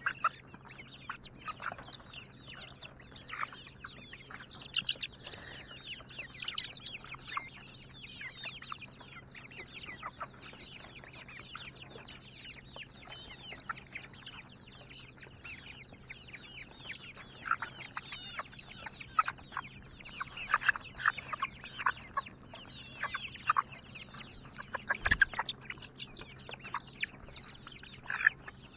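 A flock of domestic chickens clucking and calling as they crowd together, busier in the second half. One dull thump late on is the loudest single sound.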